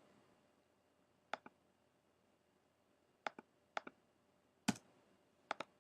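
Scattered clicks of a computer mouse and keyboard while a spreadsheet formula is entered, about nine in all, several in quick pairs, the loudest a little before the end.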